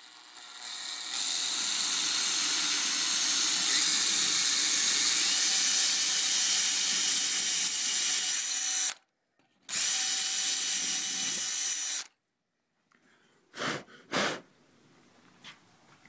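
Power drill with a masonry bit boring into stone, running steadily for about nine seconds, pausing briefly, then running a few seconds more before stopping. Two short knocks follow near the end.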